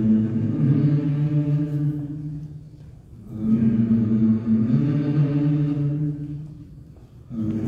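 Low voices chanting on a nearly steady pitch, in phrases of about three to four seconds, with short breaks about three seconds in and near the end.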